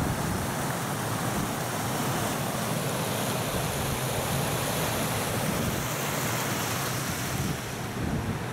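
Water rushing steadily over a low concrete weir and splashing into a shallow stream, with wind buffeting the microphone; the hiss of the water drops slightly near the end.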